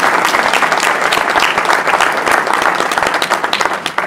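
An audience clapping, loud and dense, beginning to thin out near the end.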